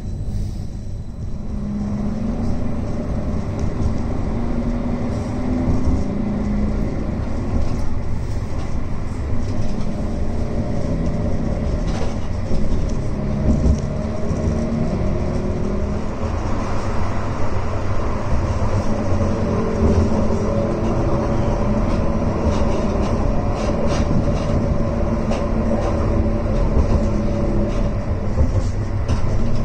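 Edinburgh tram (CAF Urbos 3) pulling away from a stop and running along the line, heard from inside the car: a steady low rumble of wheels on rail, a motor hum that shifts in pitch, and occasional clicks.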